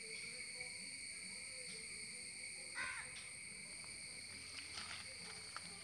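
A steady, high-pitched insect drone, such as crickets, with one short louder sound about three seconds in and a few faint clicks near the end.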